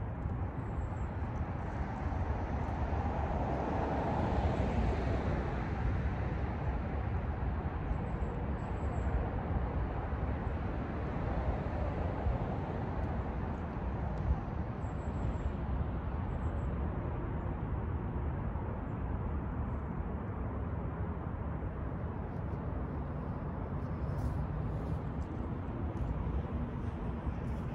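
Steady outdoor background noise, a low rumble with hiss, swelling for a couple of seconds about four seconds in.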